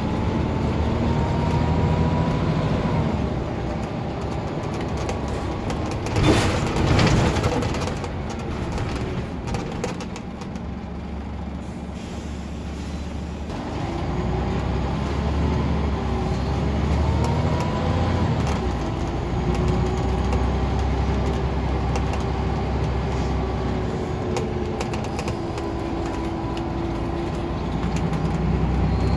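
Inside a Scania N94UD double-decker bus on the move: its diesel engine and ZF automatic gearbox run with a whine that rises and falls as the bus gathers speed and changes gear. A loud burst of air hiss comes about six seconds in, and the engine quietens for a few seconds before pulling hard again.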